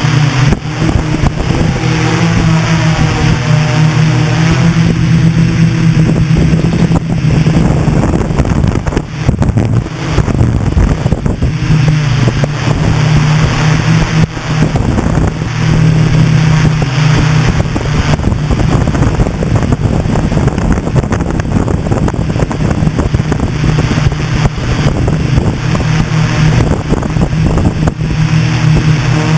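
A hexacopter's six brushless motors and propellers run as it lifts off and climbs, a steady buzz whose pitch wavers as the throttle changes. Wind buffets the onboard GoPro's microphone.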